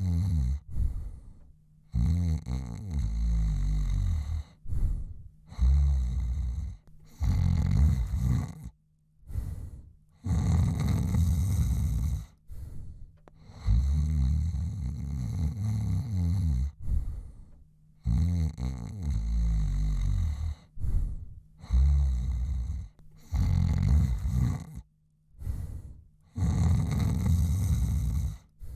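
A man snoring in his sleep, one rasping snore or breath every two seconds or so, with short quiet pauses between them.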